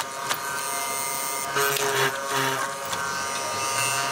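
Hollow-chisel mortiser running with a steady electric motor buzz, its square chisel and auger bit plunging into hardwood a few times, each cut a short rasping burst.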